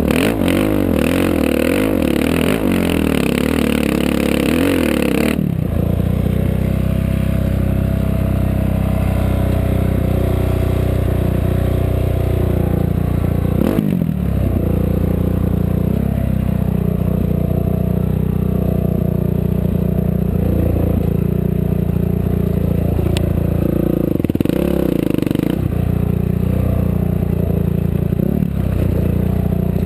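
Off-road race vehicle's engine running hard over rough ground, its pitch rising and falling with the throttle, with rattling and scraping. About five seconds in the sound changes abruptly to a steadier, lower engine drone.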